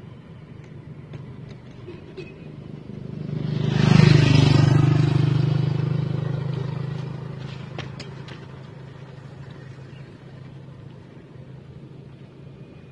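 A motorcycle passing close by: its engine swells to a peak about four seconds in, drops in pitch as it goes past, and fades away over the next few seconds.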